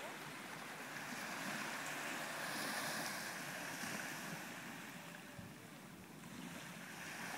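Small waves washing onto a sandy beach, a steady wash that swells and eases, with some wind on the microphone.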